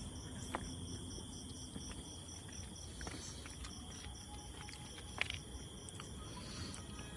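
Insects chirping in a high, even pulse of about four to five chirps a second over a faint steady hum, with a sharp click about five seconds in.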